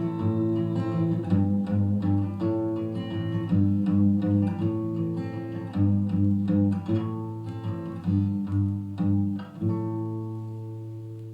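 Instrumental outro of a song played through a Jordan Watts Jumbo full-range speaker: plucked guitar notes and chords over a bass line, ending about ten seconds in on a held chord that slowly fades.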